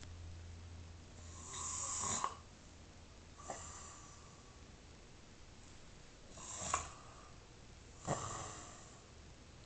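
Snoring: a longer snore about two seconds in, then three shorter, sharper snorts spaced a few seconds apart.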